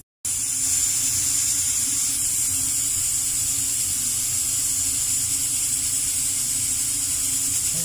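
Aluminium pressure cooker on a gas burner hissing steadily as steam escapes through its valve: the cooker is up to pressure.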